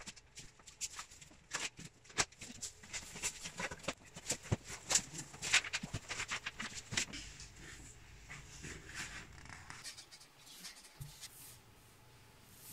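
A large cardboard box being opened by hand: flaps pulled open, cardboard scraping and rustling in a quick run of sharp knocks and scrapes, growing quieter about eight seconds in.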